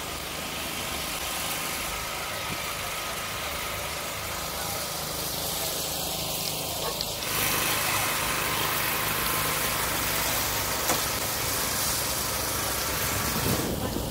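Steady background of distant vehicle engines running, with faint voices.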